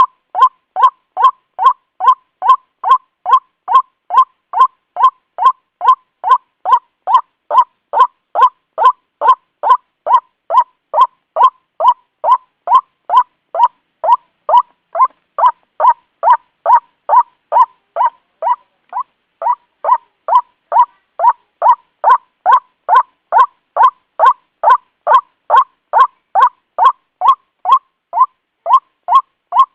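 White-breasted waterhen calling: a monotonous run of short, loud 'ruak' notes repeated evenly about two and a half times a second, growing a little softer for a few seconds around the middle before picking up again.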